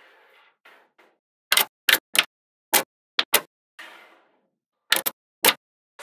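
Small magnet balls snapping together, about eight sharp clicks at irregular intervals. There are softer stretches of rustling or rattling near the start and a little before the middle.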